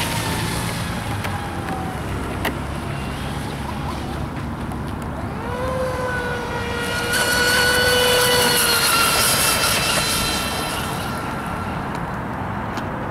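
Triton RC speedboat's motor whining at full speed, its pitch falling away near the start, then rising again about five seconds in and holding before fading about ten seconds in, with the hiss of its spray on the water.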